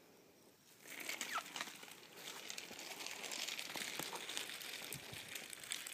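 Baby stroller with a pet chicken in it being pushed along. Its wheels and frame make a steady crackling, rustling noise with many small clicks, starting about a second in.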